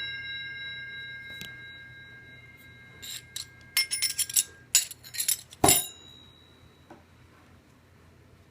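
Steel hole saws ringing like bells: a struck saw's chime with several overtones dies away, then a quick run of short metallic clinks and rings between about three and six seconds in, the loudest near the end of that run.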